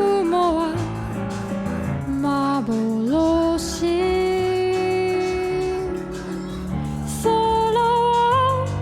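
Background song with a woman singing long held notes over soft instrumental accompaniment.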